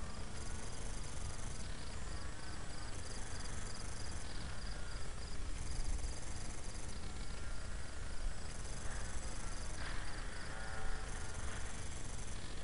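Crickets chirping in a steady run of rapid pulses, with the faint whine of a small electric RC foam plane's motor drifting up and down in pitch, over a low rumble.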